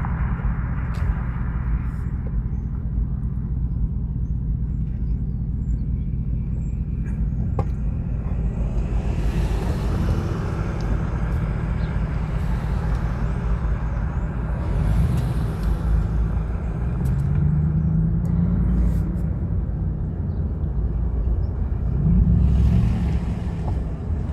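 Car driving along: steady engine and road rumble, with the engine note rising twice in the second half as it speeds up.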